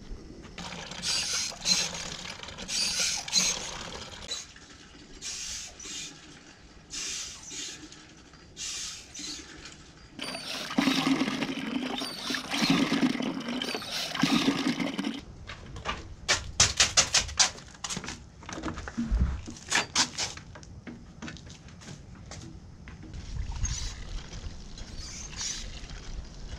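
Well water from a hand pump pouring and splashing into a plastic bucket in uneven surges, heaviest and fullest midway, followed by a quick run of sharp clicks or knocks.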